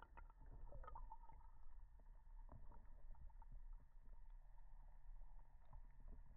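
Near silence from a GoPro camera set underwater in a pond: a faint, steady low rumble with scattered small clicks and ticks.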